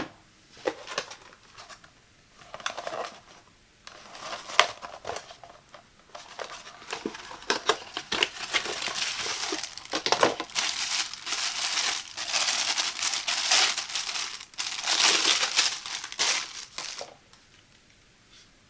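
Cardboard product box handled and opened with scattered clicks and rustles, then a thin plastic bag crinkling and rustling as a silicone pot strainer is worked out of it. The crinkling stops about a second and a half before the end.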